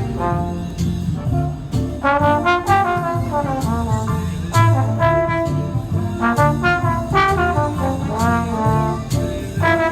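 A subway busker playing a brass instrument in a jazz style, in phrases of melody with short breaks between them, over a low accompaniment.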